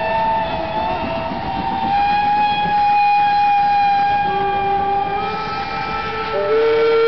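Steam locomotive whistles blowing: several long, steady whistles of different pitches overlapping one another. A lower-pitched whistle starts near the end and is the loudest.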